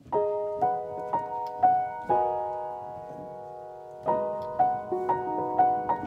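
Background music: piano notes struck about twice a second over a sustained chord, pausing on one held chord in the middle before the phrase picks up again.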